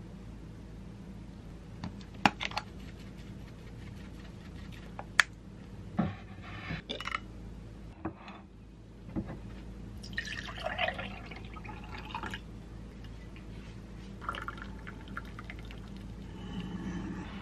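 A few sharp clicks and knocks of dishes and utensils being set down, then hot water poured from an electric kettle into a ceramic mug of instant coffee, a hissing splash lasting a few seconds near the end.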